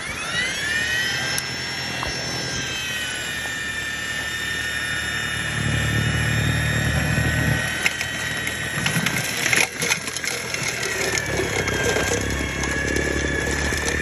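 EGO battery-powered two-stage snowblower running with a steady high-pitched electric whine, its pitch settling in the first second. A low rumble joins from about five to eight seconds in, there is a short clatter near ten seconds, and the whine dips briefly and comes back up soon after.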